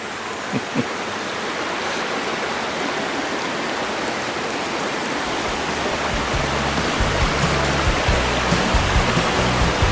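Waterfall with fast, raging water rushing steadily, growing a little louder. About halfway through, background music with a bass line comes in under it.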